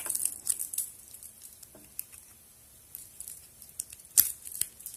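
Light clicks and scrapes of a key being handled against an old padlock, with one sharp click about four seconds in.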